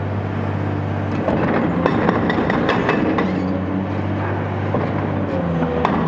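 Cat 385C ultra-high-demolition excavator's C18 diesel engine running steadily under load, with many short sharp knocks and clanks from the attachment working the concrete foundation. The engine grows a little louder about a second in.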